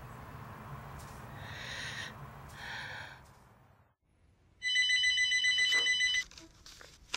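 Telephone ringing: one electronic ring with a rapid warbling trill lasting about a second and a half, starting about four and a half seconds in. Before it come two soft breathy sounds, and a sharp click near the end.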